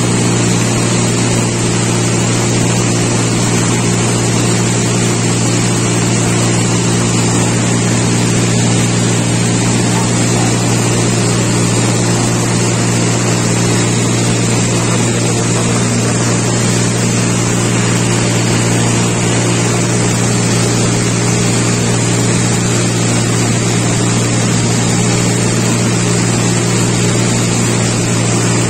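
A light propeller aircraft's engine and propeller running steadily, heard inside the cabin as a low, even hum with a rush of air noise over it.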